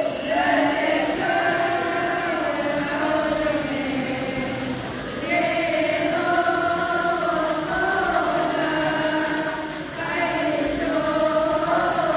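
A group of voices chanting a Syriac Orthodox liturgical hymn together, in long drawn-out phrases with short breaks about five and ten seconds in.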